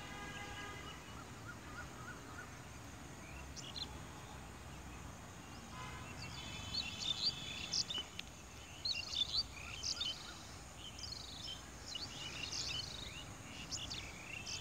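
Birds chirping and calling outdoors: scattered short, sharp notes at first, becoming a busy chorus from about six seconds in, over a low steady background rumble.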